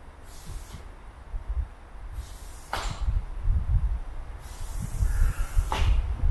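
Aerosol spray paint can hissing in three separate bursts as paint is sprayed onto a wall: a short one at the start, another a couple of seconds in, and a longer one near the end. A steady low rumble runs underneath.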